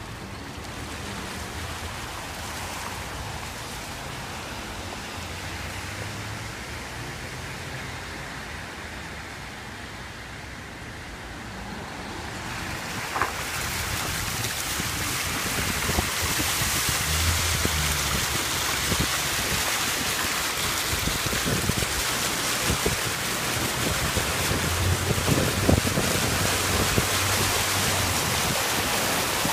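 Rushing floodwater, a steady hiss that grows much louder about halfway through, with wind buffeting the microphone.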